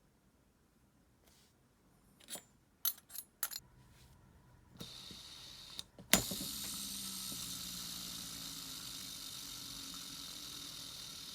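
Small metallic clicks from an ABU Ambassadeur 5500C baitcasting reel being handled, then a sharp click about six seconds in as the spool is released. The spool then spins freely with a steady whir that slowly fades, on a new standard (non-bearing) cog wheel fitted to trace a knocking noise.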